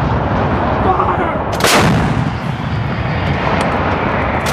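M777 155 mm towed howitzer firing: one sharp blast about a second and a half in, over a continuous low rumble of gunfire and its echo.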